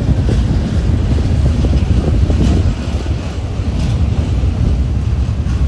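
Loud wind buffeting the microphone over the low, steady rumble of a passenger train crossing a rail bridge, with faint scattered knocks.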